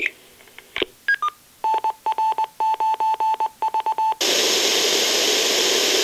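Icom SP-35 communications speaker playing a test file: two short falling beeps, then a Morse code ID keyed as a steady beeping tone, then about two seconds of pink noise, a loud even hiss, starting near the end.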